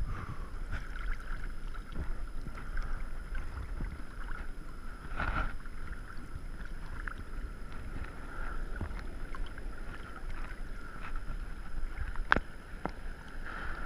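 Ocean water sloshing and lapping around a camera held at the waterline, with wind on the microphone; a louder splash comes midway and a sharp one near the end.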